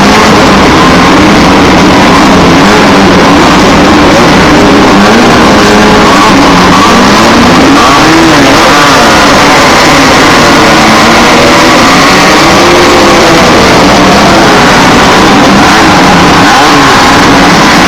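Several Class 1600 off-road race cars, with air-cooled VW 1600 cc engines, revving together and loud. Their overlapping engine notes rise and fall in pitch.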